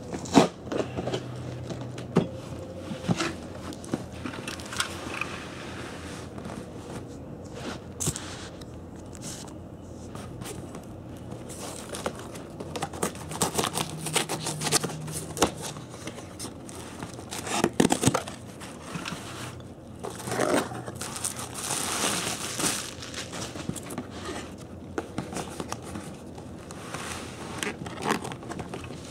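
Packing paper crinkling and tearing as a cardboard shipping box is unpacked, with irregular scrapes and knocks of cardboard in between.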